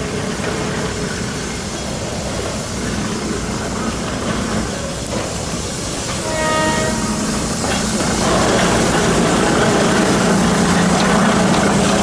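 Shay-type geared steam locomotive of the Alishan Forest Railway running, with a short whistle blast about six and a half seconds in. From about eight seconds in the running noise grows louder.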